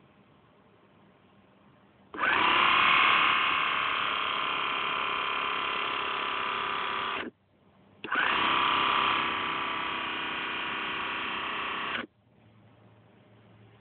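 Small electric motor in a custom Boba Fett blaster prop running, spinning its barrel with a steady whir. It runs twice, about four to five seconds each, with a short pause between, each run starting loudest and settling slightly.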